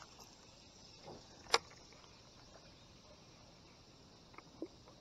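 Handling of a baitcasting reel on a rod: one sharp click about a second and a half in, a softer one just before it, and a few faint ticks near the end, over a faint steady hiss.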